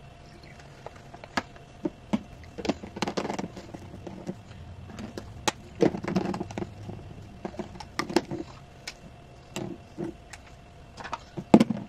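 Plastic baby bottles being handled on a countertop: a string of light clicks and knocks as the nipple caps are screwed on and the bottles are set down.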